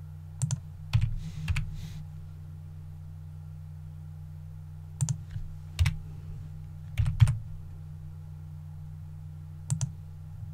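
Computer keyboard keystrokes and mouse clicks: scattered sharp taps, a few in quick succession near the start, more around the middle and one near the end. A steady low hum runs under them.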